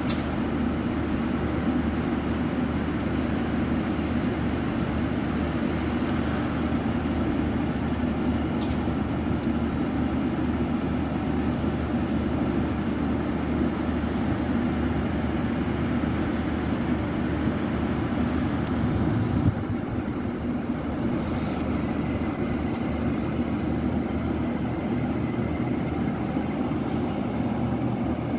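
Irish Rail 22000-class diesel multiple unit running steadily under power as it creeps slowly into a siding, giving a constant low diesel drone. A sharp click comes about two-thirds of the way through, and faint high squeals can be heard over the last several seconds.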